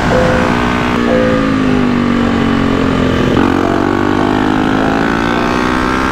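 Motorcycle engine running on the move, its pitch sinking slowly and then climbing again.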